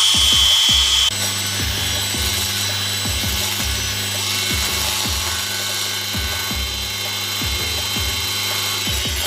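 A power tool running steadily with a high whine, which shifts and drops in level about a second in. Background music with a thumping beat plays along.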